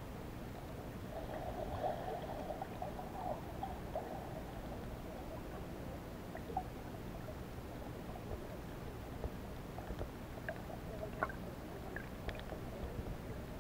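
Underwater ambience: a steady low hum with crackling, heaviest in the first few seconds, and scattered faint clicks later on.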